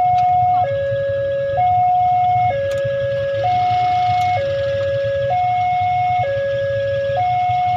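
Railway level-crossing warning siren sounding a steady two-tone hi-lo alarm, switching between a higher and a lower tone just under once a second: the signal that a train is approaching and the crossing is closed.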